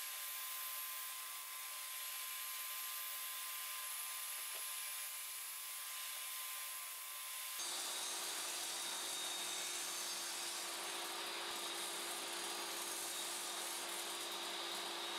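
Bench table saw running steadily, its blade spinning up through the kerf in a crosscut sled's base. The steady tone drops to a lower one about halfway through.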